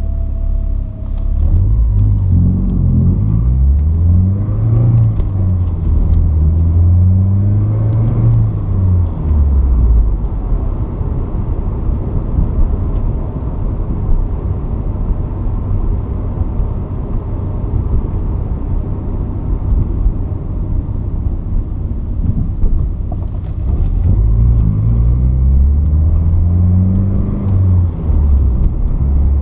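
Porsche 944's 2.5-litre four-cylinder engine pulling up through the gears, its pitch climbing and dropping back at each shift, then running steadily for a while before climbing through the gears again near the end.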